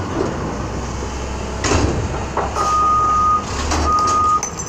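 Mack MR front-loader garbage truck's diesel engine running, with a metal clank about two seconds in as the forks come free of the set-down dumpster. Then its reverse alarm sounds two long beeps as the truck backs away.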